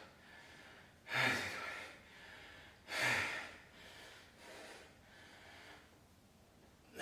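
A person breathing hard between or during lifting efforts, with loud breaths about one and three seconds in, then softer ones.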